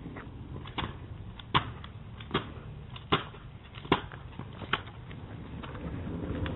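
Small hard wheels rolling over pavement with a steady low rumble, clicking sharply over the joints six times, evenly spaced a little under a second apart.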